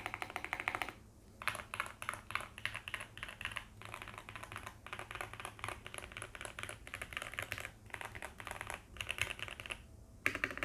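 Fast typing on a Heavy Shell Kira96 mechanical keyboard with factory-lubed Gateron Pro Yellow linear switches and doubleshot PBT Cherry-profile keycaps, in quick runs of keystrokes broken by brief pauses. The board is tape-modded and foam-filled, which gives a poppy, thocky keystroke sound.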